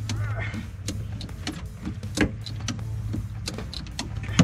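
A boat's engine idling with a steady low hum, with irregular clicks and knocks from the hull and gear as a large alligator is hauled up over the side.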